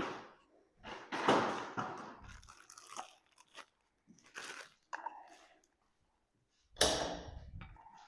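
Aerosol garage-door lubricant sprayed in several short hissing bursts, the longest starting about a second in, another near the end, lubricating the opener belt and rail.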